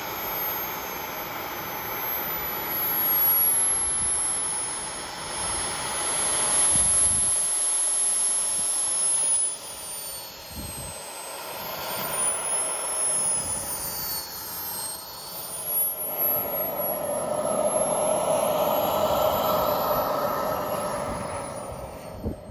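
Skymaster F-4 Phantom RC model jet's turbine engines running at low power while it taxis, a steady jet rush with a high whine that rises and falls in pitch as the throttle changes.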